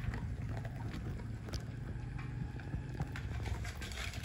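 Several dogs chewing raw meat and bone, with scattered wet crunches and clicks of bone over a low steady rumble.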